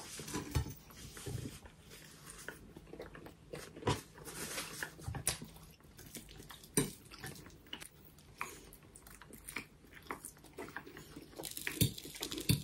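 Close eating sounds: toast being bitten and chewed with a crunch, in irregular small crackles and clicks, and a fork tapping and scraping on a plate now and then.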